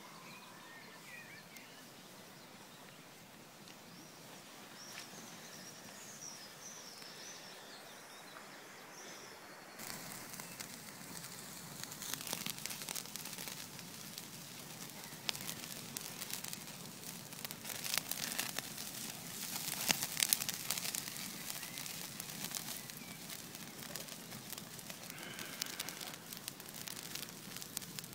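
A few faint bird chirps over quiet outdoor background, then, about ten seconds in, a sudden change to a wood campfire crackling with many sharp snaps, louder towards the middle.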